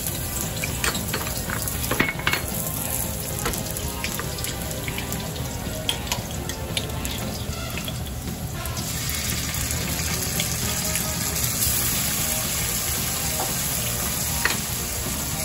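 Minced garlic sizzling and frying in hot oil in a wok, with scattered small ticks and taps in the first half. The sizzle grows stronger and hissier about nine seconds in, around when chili bean paste is added.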